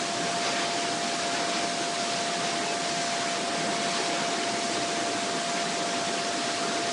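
Steady hiss of background recording noise with a constant steady tone running through it; no pouring or other distinct sound stands out.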